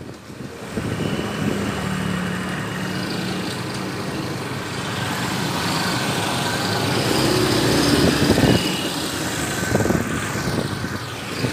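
Street traffic heard from a moving motorbike: small motorcycle engines running, with road and wind noise, the engine notes shifting in pitch a few times.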